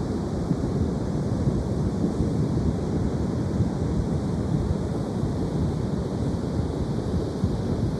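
Ocean surf washing steadily, with wind buffeting the microphone and adding a low rumble.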